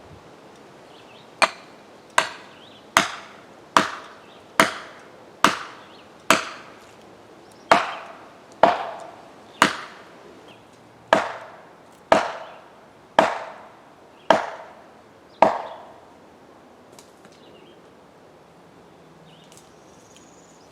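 A felling wedge being driven into a spruce's back cut with repeated hammer blows, about fifteen sharp strikes roughly a second apart. The wedges are tipping the tree toward its fall.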